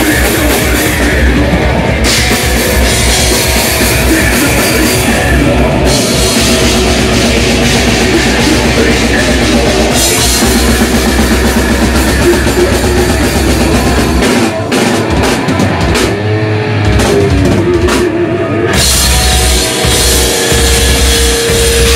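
Live heavy rock band playing loud, with distorted electric guitar and a pounding drum kit with cymbals. About two-thirds of the way through, the low end and then the cymbals drop out for a few seconds before the full band comes back in.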